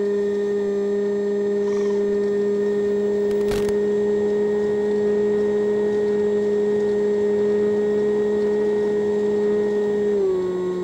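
Electric motor and propeller of a Multiplex EasyStar model plane running with a steady whine, picked up by the onboard FPV camera's microphone. The pitch steps down slightly near the end as the throttle is eased back. A single brief click comes about three and a half seconds in.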